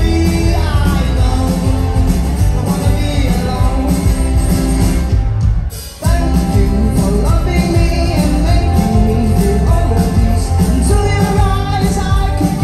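Rock band playing live with a lead vocal over acoustic and electric guitars and drums. The sound drops out for a moment about halfway through, then the full band comes straight back in.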